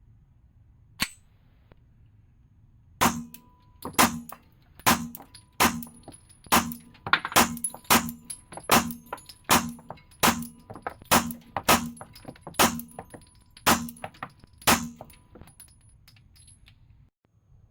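Beretta 92F 9mm pistol firing a string of about fifteen shots at a fairly steady pace, roughly one every half second to one second, after a single sharp click about a second in.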